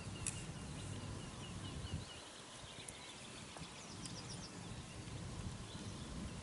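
Riverbank ambience: a small bird calling in quick series of short, high chirps over a low rumble, with a few light clicks, likely from fishing tackle being handled.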